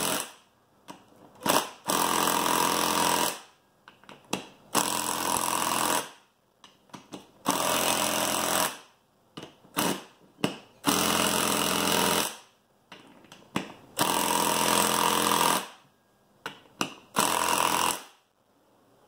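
Cordless impact driver hammering in repeated bursts of about one to one and a half seconds, with short trigger blips between them, as it runs down the bolts of a beadlock clamp ring one after another in a star pattern.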